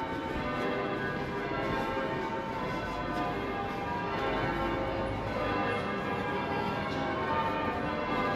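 Church bells change-ringing, many bells struck in turn with their tones overlapping.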